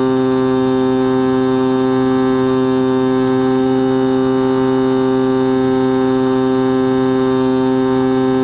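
Onboard sound of an X-8 flying wing's electric pusher motor and propeller running at steady cruise throttle: a loud, even buzz that holds one pitch throughout.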